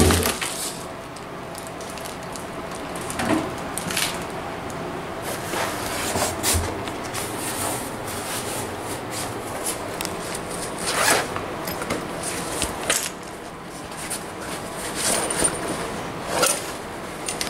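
Plastic wrapping and cardboard rustling and crinkling as packed parts are handled in a shipping box, with scattered short scrapes and clicks.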